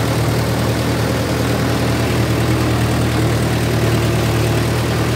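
Mahindra Yuvo 575 DI tractor's four-cylinder diesel engine running steadily as the tractor works through a flooded paddy field, with muddy water churning around the wheels.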